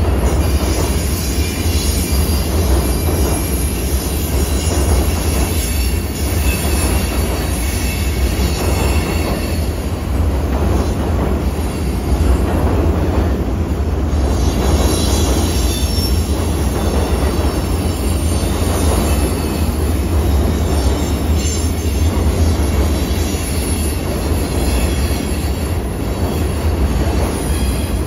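Freight cars rolling across a steel truss railway bridge: a steady, heavy rumble of wheels on rail, with faint high wheel squeal at times.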